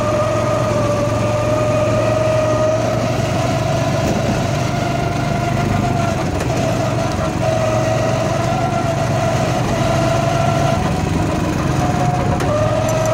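Go-kart engine running steadily as the kart drives, its whine dipping and rising a little in pitch.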